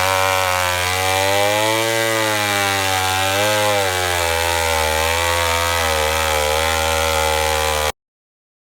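Two-stroke chainsaw cutting lengthwise through a log to square it into a beam, its engine note sagging and recovering repeatedly as it loads up in the cut. The sound stops abruptly near the end.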